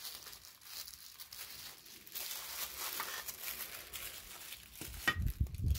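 Tissue paper rustling and crinkling as tissue-wrapped items are handled and set into plastic baskets, with a few dull low thumps near the end.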